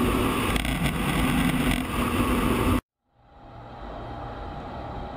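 Steady, loud rush of jet engine and airflow noise inside an F-16 cockpit, with a low hum under it, cutting off abruptly about three seconds in. After a brief gap, the same F-16's jet engine is heard from the ground as a quieter, steady distant roar.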